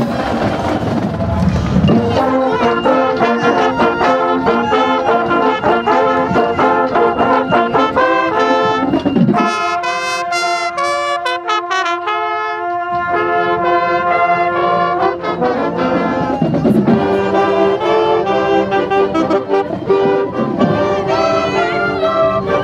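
Marching band playing a tune, led by trumpets and trombones. The low parts drop out for about three seconds near the middle, leaving only the higher held notes.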